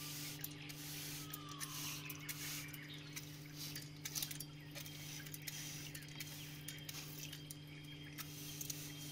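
Steady low hum of a small motor, with scattered light clicks and taps throughout.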